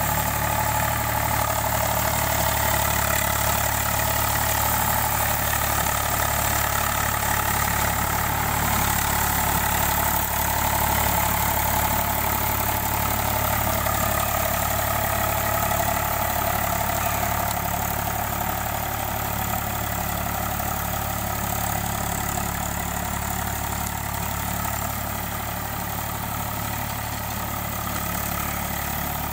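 Eicher 485 tractor's three-cylinder diesel engine running steadily as it pulls a rotavator, puddling a flooded paddy field. The sound grows slightly fainter in the second half as the tractor moves away.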